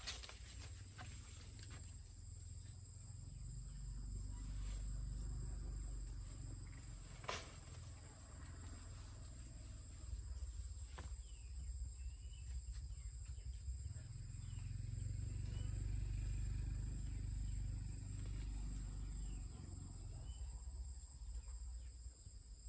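Insects singing in a steady high drone, over a low rumble that swells and fades, with one sharp click about seven seconds in.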